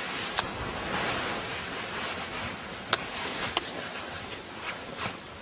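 Steady rushing noise with a few sharp clicks.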